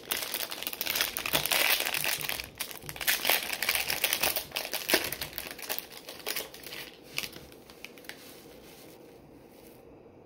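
Foil trading-card pack wrapper crinkling and crackling as it is handled and opened. The crackling is dense for the first several seconds and dies away by about eight seconds in.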